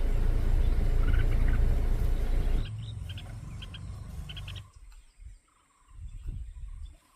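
A bird calling in short, high notes repeated in quick groups, after a loud low rumble that stops suddenly a little under three seconds in.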